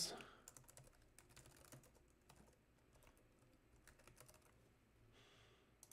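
Faint typing on a computer keyboard: a run of quick, irregular key clicks.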